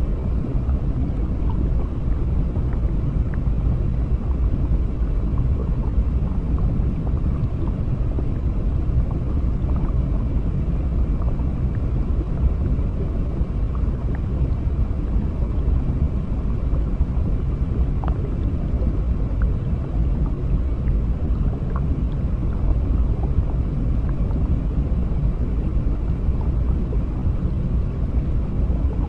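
Underwater ambience: a steady low rumble of water, with faint short ticks scattered through it.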